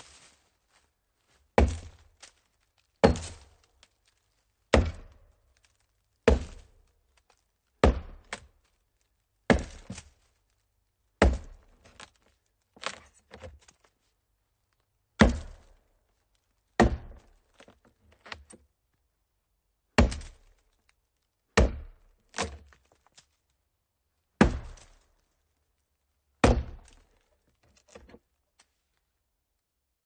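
A hollow tree trunk being chopped: a steady series of heavy chopping strikes, about one every one and a half seconds, some followed by a lighter second knock.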